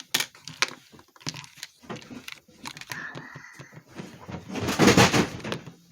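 Small plastic toy pieces and wrapping being handled: scattered clicks and rustling, with a loud burst of rustling about five seconds in.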